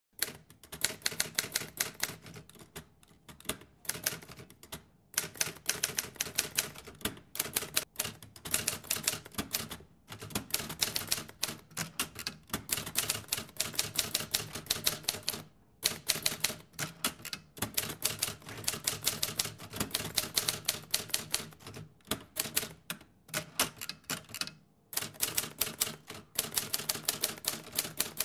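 Typewriter keys clacking in fast, continuous runs, broken by short pauses every couple of seconds, as a typing sound effect.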